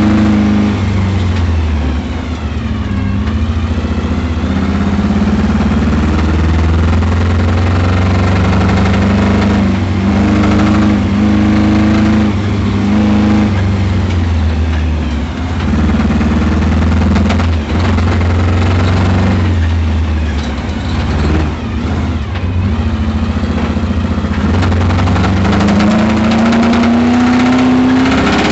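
Camaro engine revving up and falling back again and again under hard driving, with underhood noise that the owner puts down to a spun bearing.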